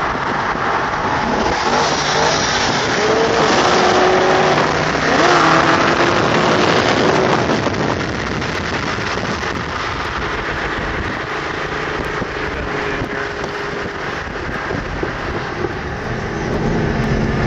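Car engine pulling hard, its pitch rising in steps over the first few seconds, then cruising more steadily, under a constant rush of road and wind noise heard from inside a moving car.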